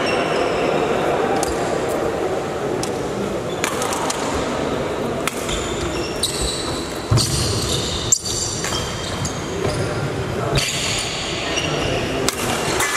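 Badminton rally: sharp cracks of rackets striking the shuttlecock, coming irregularly about once a second, over steady crowd chatter.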